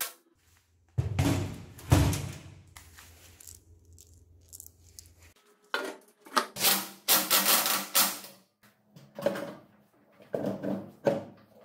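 Metal parts and hand tools clinking and clattering in irregular bursts, with two sharp knocks about a second apart near the start. A low steady hum runs under the first few seconds and stops about halfway through.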